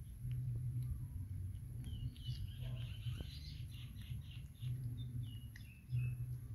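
Baby macaque giving high-pitched squeaking calls: a quick run of pulsed squeaks about two seconds in, then a few short falling chirps near the end, over a steady low hum.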